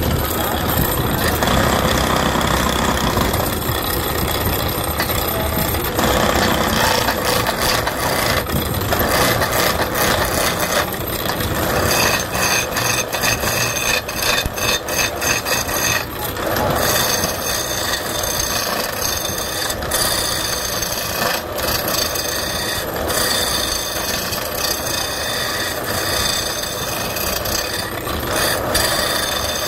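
Wood lathe running as a handheld turning tool cuts into a spinning wooden block, a continuous rough scraping of the cut with irregular knocks.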